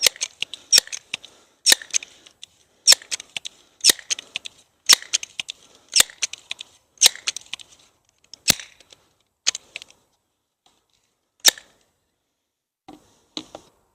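Multi-pump pellet pistol being pumped: about eleven sharp clacks roughly a second apart, each pump stroke snapping shut, spacing out and stopping near the end.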